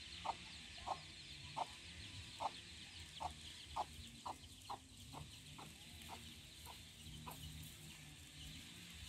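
Chicken clucking faintly, a string of short clucks about twice a second that stops about seven seconds in, over a faint steady hiss.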